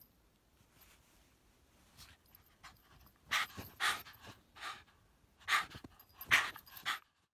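Husky-type dog panting hard and close by, out of breath from running in deep snow: a few loud, quick breaths starting about three seconds in.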